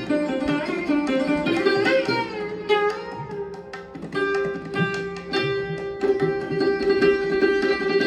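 Instrumental background music: a plucked string melody over a steady drone.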